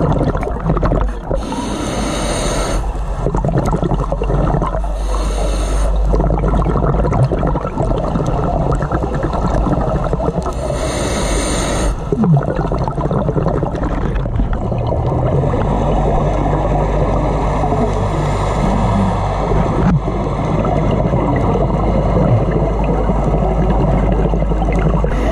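Underwater ambience heard through a camera housing: a steady low rushing, broken by three bursts of scuba regulator exhaust bubbles, each about a second long, the last about halfway through.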